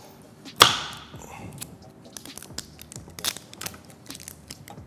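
Kitchen handling sounds: a loud metallic clank with a brief ringing tail about half a second in, followed by a string of short clicks and knocks of a knife cutting on a wooden cutting board.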